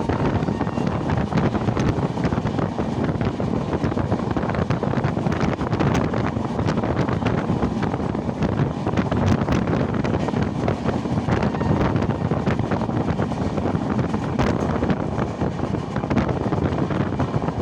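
Express train running at speed: a steady rumble of wheels on the rails, peppered with frequent short clicks and rattles, with wind buffeting the microphone.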